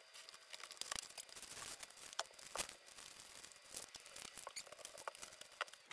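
Cardboard box and paper wrapping handled and pulled apart by hand, crinkling and tearing in a string of faint short crackles and rustles.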